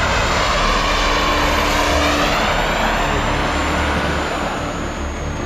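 Small gas-turbine engine of a 1/5-scale BVM L-39 model jet flying past: a steady jet hiss with a thin high whine, the tone sweeping and swelling about two seconds in as it passes.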